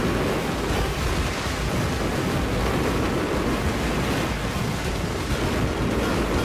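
Fireworks barrage: a steady, dense roar of many overlapping bursts and crackles with no single bang standing out.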